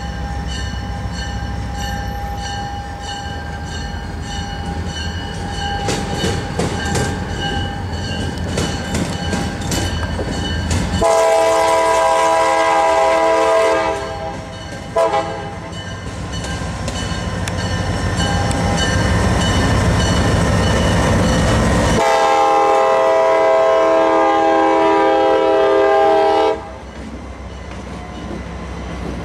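Horn of a CSX freight train's diesel locomotives blowing the grade-crossing signal as it comes on: a long loud blast, a short one, then a long one held while the locomotives pass. Between the blasts the engines rumble heavily, and near the end the horn stops and the autorack cars' wheels roll and clack on the rails.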